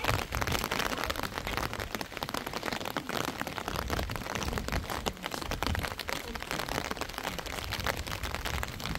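Steady rain falling, heard as a dense run of many small drops ticking in quick succession.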